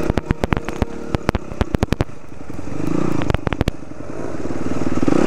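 Dirt bike engine running under throttle on a rough trail, rising twice, with many sharp clattering knocks over it.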